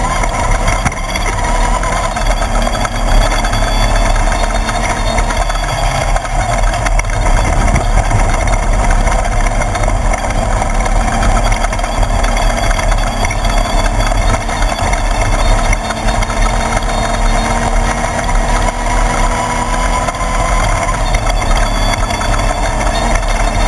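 A Class 1/2-1600 off-road race buggy's air-cooled VW-based 1600cc engine running continuously, with small rises and falls in pitch over a dense mechanical rattle.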